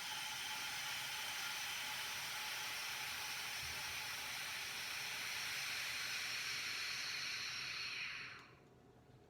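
Vacuum pump on a resin-degassing vacuum chamber running with a steady hiss, which stops about eight seconds in.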